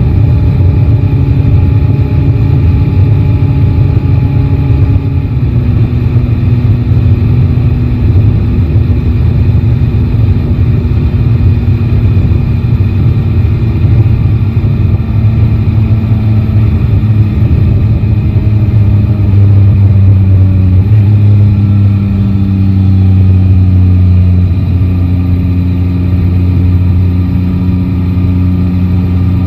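Yamaha Tracer 9 GT's three-cylinder engine running steadily under way, heard from the rider's seat. Its pitch eases down a little about five seconds in and again a little after twenty seconds.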